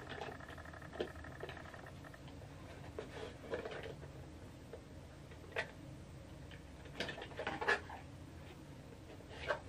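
Faint scattered clicks and rustles of a small cardboard accessory box and plastic packaging being handled and opened, with a few sharper clicks about seven seconds in. A faint steady hum runs through the first two seconds.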